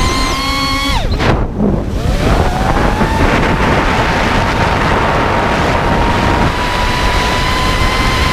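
Brushless motors and propellers of a 5-inch FPV quadcopter, a steady whine with wind rush on the microphone. About a second in the pitch drops sharply and nearly dies away, then climbs back over the next second or two and holds steady.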